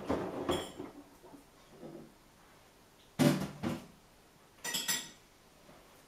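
Samsung Eco Bubble front-loading washing machine tumbling laundry during a fast wash, the clothes dropping in the drum with irregular knocks and clinks, the loudest about three seconds in and again near five seconds, quiet between.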